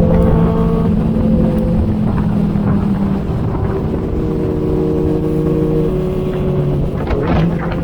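Inline-four sport motorcycle engine running at steady riding revs, its pitch easing down a little about three seconds in. A few short knocks come about seven seconds in.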